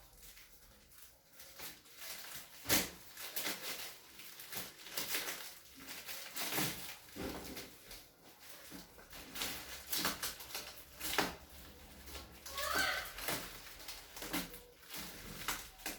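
Plastic wrapping of a vacuum-packed mattress rustling and crackling in irregular bursts as it is handled. A short high-pitched call is heard about 13 seconds in.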